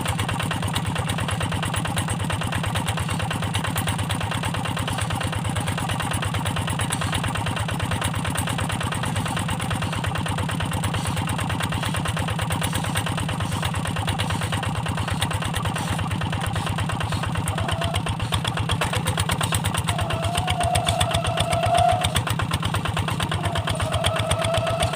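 Single-cylinder diesel engine of a Quick G1000 hand tractor running steadily with an even firing beat. It gets a little louder in the last several seconds, and a wavering higher tone comes in twice near the end.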